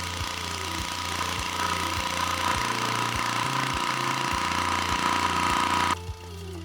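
Engine-driven water transfer pump running steadily, with a steady whine over its noise; it cuts off abruptly about six seconds in. Background music with a steady beat plays under it.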